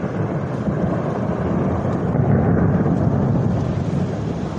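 Thunder rolling during a heavy thunderstorm: a long, deep rumble that swells up right at the start and peaks about halfway through.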